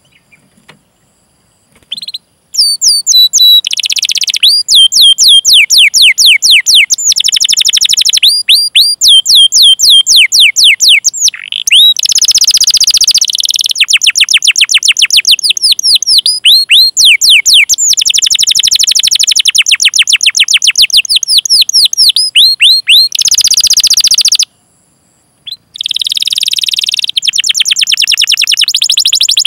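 Domestic canary singing a long, rolling song of rapid repeated chirps, each sweeping down in pitch ('cuit cuit'), starting a couple of seconds in and breaking off briefly near the end before going on.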